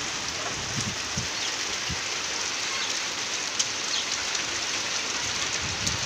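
Heavy rain pouring steadily on a courtyard and thatched roofs, an even hiss with a few sharp ticks.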